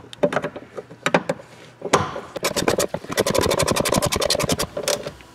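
Hand ratchet turning a bolt: a few separate clicks at first, then from about two seconds in a quick, even run of ratchet clicks, roughly ten a second, that stops shortly before the end.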